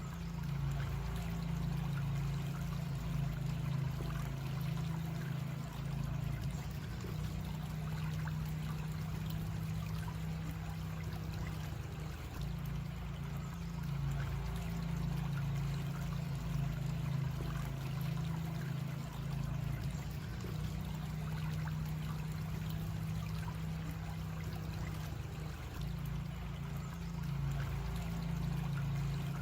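Creek water flowing and trickling steadily, with a steady low rumble beneath it.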